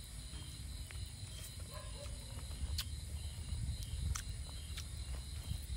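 Steady chorus of night insects, a high-pitched even trill, over a low rumble, with a few sharp clicks.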